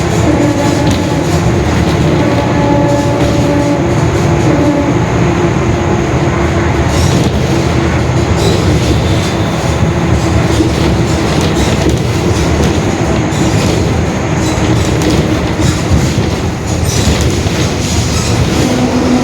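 Mercedes-Benz OF-1721 Bluetec 5 bus heard from inside while driving at speed: diesel engine and road rumble, with a steady growling whine from the differential running through it.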